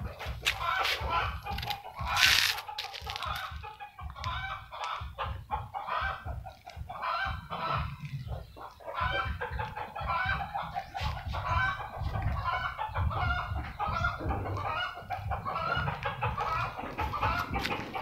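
Chickens clucking, a steady run of short repeated calls, with a brief hiss about two seconds in.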